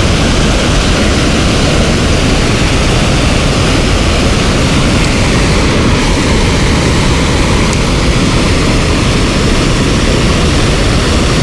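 Steady rush of water pouring over a concrete dam spillway and crashing into the pool below, loud and unbroken.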